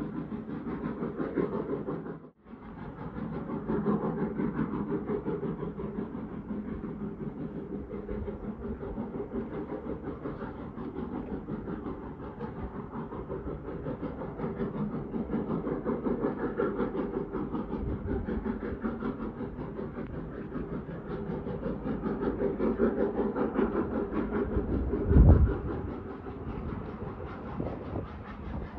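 Distant steam locomotive working a train, its exhaust beats carrying across open country. A brief dropout comes about two seconds in, and a single loud low thump near the end.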